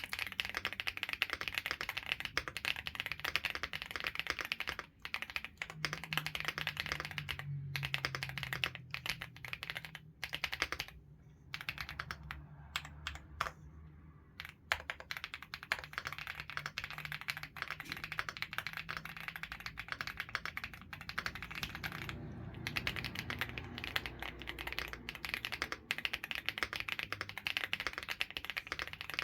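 Continuous fast typing on a fully foam-filled mechanical keyboard with an FR4 plate: a dense run of key clacks, broken by a few short pauses.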